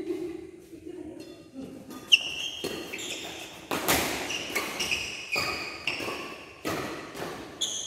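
Badminton doubles rally beginning about two seconds in: rackets strike the shuttlecock every half second to a second, with short high shoe squeaks and footfalls on the court floor, echoing in a large hall. A brief voice comes before the serve.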